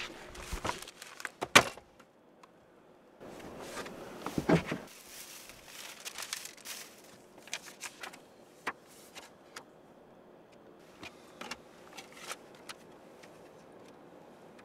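Hands searching the inside of a car: scattered clicks, knocks and rustling as things are moved and handled, with the loudest scraping rustle about four to five seconds in.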